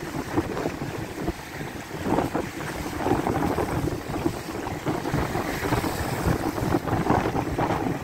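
Storm surf crashing over and against a broken concrete seawall, with water washing across it. Gusty wind rumbles on the microphone, louder from about two seconds in.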